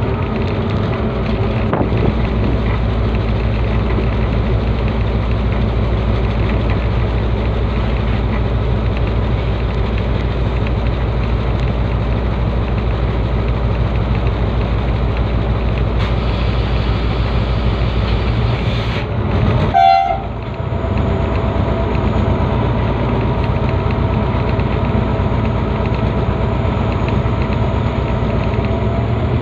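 Diesel locomotive running along the line, a steady engine drone under the rumble of the wheels on the rails. About two-thirds of the way through, the sound swells and breaks briefly with a short tone before settling back.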